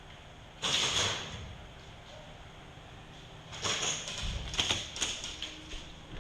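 Airsoft guns firing: a short rushing burst just under a second in, then a string of sharp, irregular shots and clicks from about three and a half seconds on.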